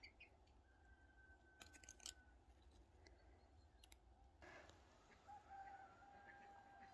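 A rooster crowing faintly, a long held crow in the second half, against near quiet. A few light clicks about two seconds in.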